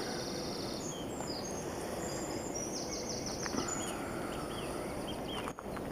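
Outdoor morning ambience: a steady background hiss with small songbirds chirping and trilling in the distance, many short high notes scattered throughout.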